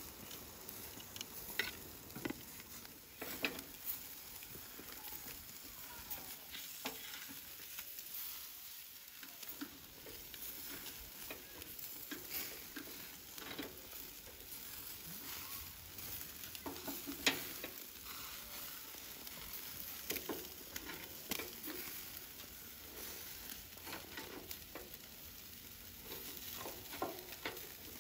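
Chicken wings on metal skewers sizzling over hot charcoal, a steady hiss with scattered crackles and sharp pops, and now and then a click as the skewers are handled.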